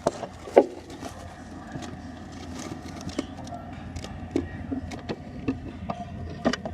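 Scattered clicks and taps from yellow-sided conures moving about their cage, over a low steady rumble, with one louder knock about half a second in.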